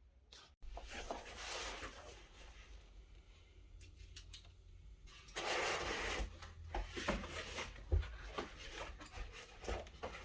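Handling noise in a small room: faint rubbing and scraping with a few light knocks, the longest and loudest stretch of scraping lasting about two seconds about five seconds in.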